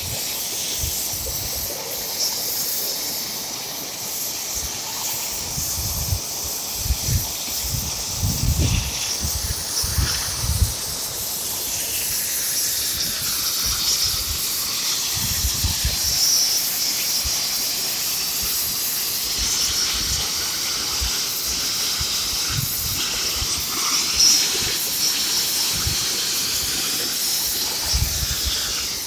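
Oxy-fuel cutting torch hissing steadily as its flame and oxygen jet cut a 30° bevel around a steel plate circle. Several short low thumps come through now and then, mostly in the first half and once near the end.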